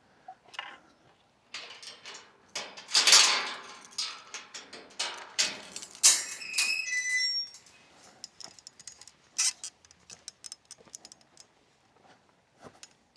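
A run of knocks, rattles and rustling, loudest about three and six seconds in, with a short high squeak around the middle, then scattered faint clicks.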